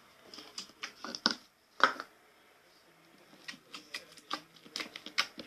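Store-bought slime being squeezed and kneaded by hand, making irregular wet clicks and pops. There is a cluster in the first two seconds, loudest about two seconds in, then a pause and another run of clicks near the end.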